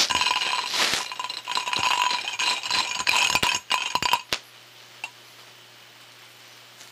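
Small hard objects rattling and clinking, heard through an ultrasonic down-converter that shifts their inaudible high-frequency content into hearing range. A rapid run of clicks stops about four and a half seconds in, leaving a steady hiss and one last faint click.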